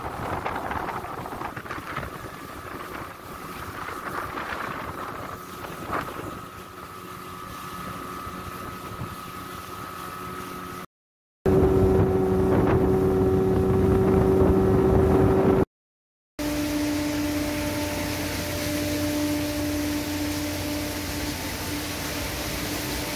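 Outboard motor driving a wooden river boat at speed, a steady engine hum with wind on the microphone and water rushing past; it is much louder for a few seconds in the middle. After a cut a steadier, lower-pitched engine hum goes on as the boat moves slowly.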